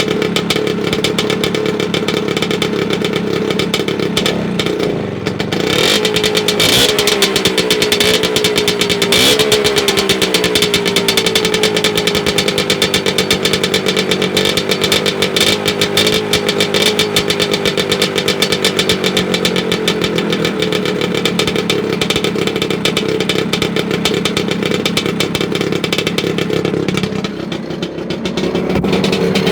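Vespa PX 125 single-cylinder two-stroke engine running loud through an aftermarket Revolver exhaust. The engine note rises and falls several times about five to ten seconds in, then holds steady, easing off near the end.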